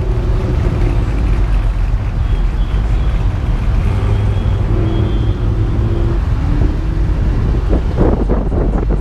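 Lowered Chevrolet pickup trucks rolling slowly past one after another, engines and exhausts running at low speed, with a steady low rumble and wind buffeting the microphone.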